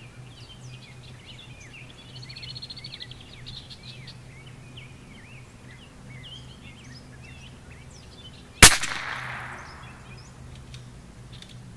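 Birds chirping, then about nine seconds in a single shot from a Bergara B14R .22 LR bolt-action rifle: one sharp crack with a short echoing tail.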